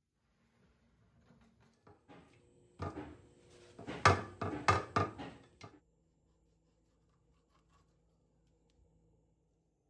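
Knocks, clatter and rustling from handling a whole raw fish in an enamelled baking dish, with a run of sharp knocks about four to five seconds in.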